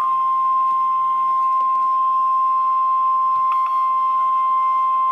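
NOAA Weather Radio 1050 Hz warning alarm tone: one steady, unwavering beep that cuts off abruptly. It is the signal that a weather warning message follows.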